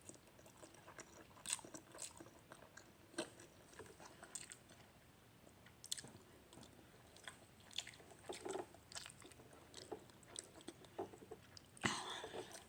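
Faint chewing and soft mouth clicks from a person eating Buldak spicy noodles, scattered and irregular, with a louder burst of noise near the end.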